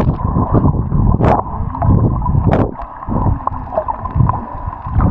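Muffled underwater water noise heard through a submerged action camera's microphone: gurgling and bubbling with irregular low surges as the water moves around the camera.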